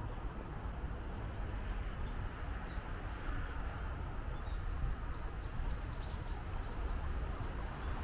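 Wind buffeting the microphone as a steady low rumble, with a bird giving a quick series of about ten short, high chirps, roughly three a second, in the second half.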